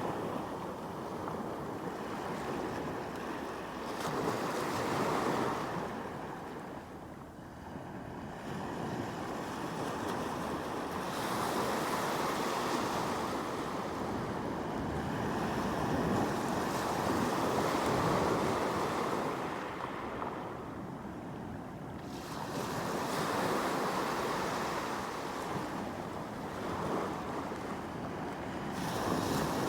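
Sea waves breaking and washing on the shore, the rush of surf swelling and fading about every five to seven seconds.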